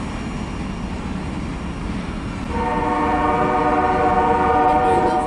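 Locomotive air horn sounding one long blast about halfway in: a chord of several steady notes held for nearly three seconds, over a low rumble.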